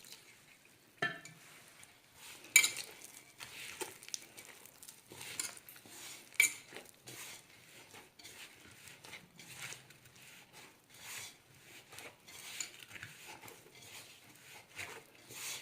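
Hands mixing and kneading maida dough with water in a bowl: irregular handling and working noises, with occasional sharp knocks against the bowl, the loudest about two and a half and six and a half seconds in.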